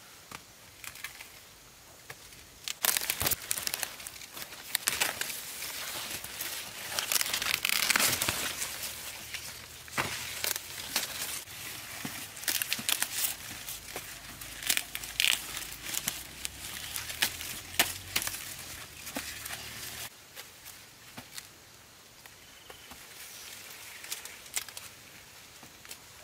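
Dry corn leaves and husks rustling and crinkling as corn plants are handled, with sharp cracks and snaps as ears are broken off the stalks. It is busiest and loudest in the middle and quieter over the last few seconds.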